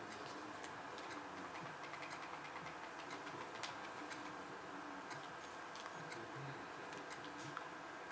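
Faint, irregular clicks of buttons being pressed on a small remote control, over a steady hum.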